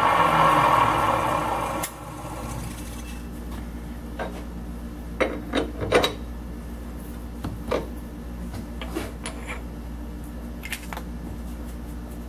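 Nichols milling machine's end mill taking a light facing cut, a loud rasping hiss that stops abruptly about two seconds in. After that the machine's motor keeps running with a steady low hum, broken by scattered sharp metallic clicks.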